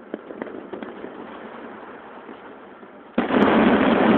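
Aerial fireworks: scattered small pops and crackles, then about three seconds in a sudden, much louder burst that carries on as a steady rush of noise.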